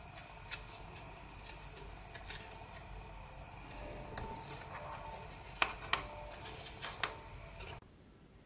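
Needle and thread being worked through toilet-roll cardboard: small clicks, scratches and rustles of card being handled, with a few sharper clicks a little past halfway. The sound drops to a quieter room tone just before the end.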